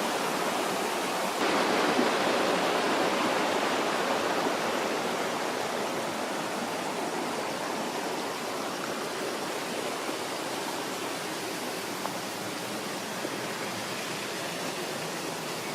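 Steady rush of flowing water from a stream or waterfall. It steps louder about a second and a half in, then eases off a little.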